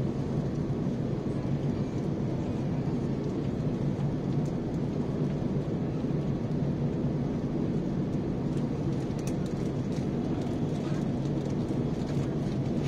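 Airbus A350 cabin noise in flight: a steady low rumble of airflow and engines, even throughout.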